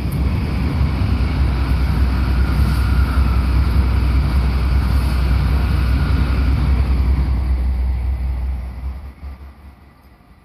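Loud, steady rumble of a passing vehicle, heaviest in the deep low end, that swells in, holds, and falls away sharply near the end.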